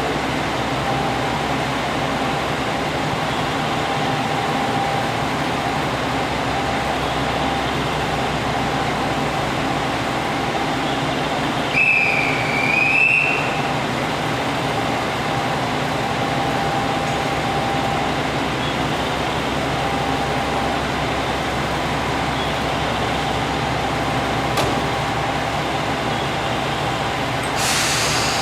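Cabin noise of a JR Shikoku 2000-series tilting diesel railcar running at speed: a steady loud drone of its diesel engines with a constant hum of tones and rumble. About twelve seconds in, a brief high wavering squeal sounds, and near the end there is a short hiss.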